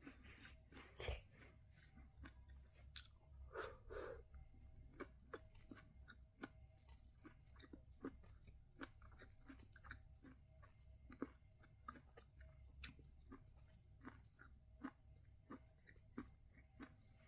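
Close-up eating of sweet corn on the cob: soft biting and chewing of the kernels, with many small crunches and mouth clicks at an irregular pace.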